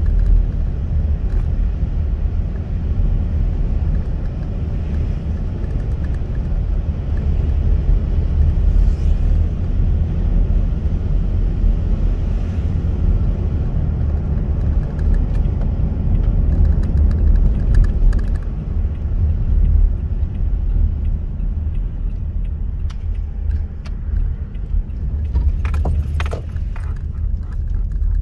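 Steady low rumble of a car's tyres and engine heard from inside the cabin while driving on wet roads. Near the end a short cluster of clicks and rattles cuts in.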